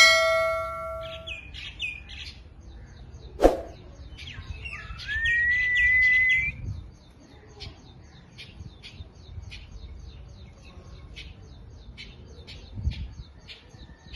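Pet parrots chirping and whistling. It opens with a ringing tone that fades over about a second. A louder rising whistle with chirps comes in the middle, then a run of short, evenly repeated chirps, about one or two a second, through the second half.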